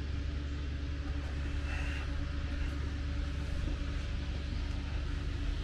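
Steady low background hum and rumble with a faint even hiss, holding level with no distinct knocks or events.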